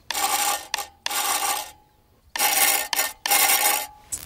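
Homemade spark-gap transmitter sending the Morse letter K twice: each letter is a long, a short and a long burst of noisy spark sound with a steady hum-like tone under it, with a pause of about half a second between the two letters.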